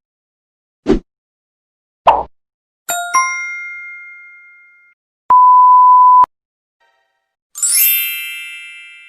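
A string of separate comedy sound effects: two short thuds, then a two-note chime ringing out, a steady one-pitch beep about a second long, and a bright rising sparkle of chiming tones near the end.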